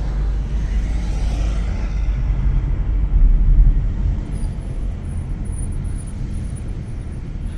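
Steady low rumble of a car driving, with road and engine noise and no distinct events; it swells briefly about three seconds in.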